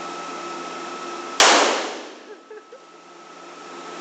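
A single pistol shot about a second and a half in, sharp and loud, its echo dying away quickly in the enclosed indoor range. A steady ventilation hum with a thin whistling tone runs under it.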